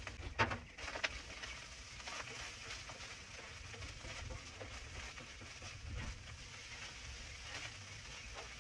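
Roast beef hash frying with a faint, steady sizzle, with a few sharp clicks in the first second or so, like a spatula tapping the cooking surface.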